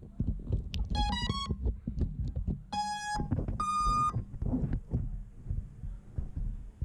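An FPV quadcopter's ESCs play their power-up tones through the motors. A quick rising run of short beeps comes about a second in, then one lower long beep and one higher long beep, the usual sign that the ESCs have power and have picked up the flight controller's signal. Handling knocks and bumps run underneath.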